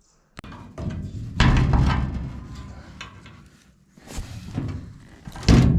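Three heavy slams or thuds, about a second and a half in, just after four seconds and the loudest near the end, each followed by a low rumble that dies away.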